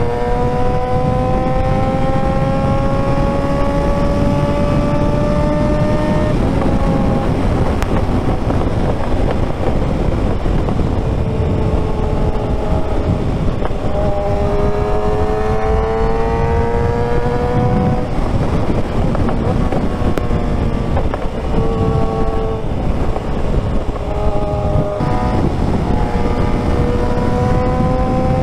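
Suzuki GSX-R 600 inline-four engine pulling under way, its note climbing steadily in pitch and stepping down at each gear change, several times over. A heavy rush of wind runs under it throughout.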